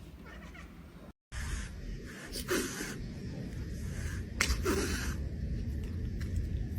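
A pet sneezing twice, two short sneezes about two seconds apart, over a steady low hum.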